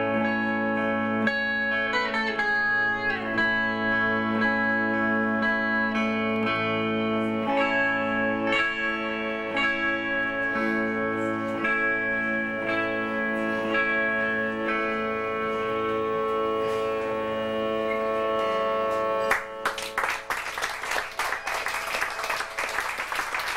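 A live band's guitar music with sliding notes near the start and long held notes, ending abruptly about nineteen seconds in; then audience applause.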